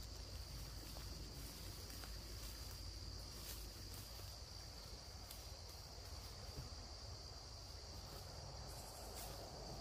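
Crickets chirping in a steady high-pitched chorus, with a faint low rumble beneath and a few faint clicks.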